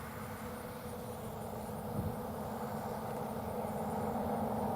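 An engine running steadily and growing gradually louder, with insects chirping in a high, rapid, even pulse.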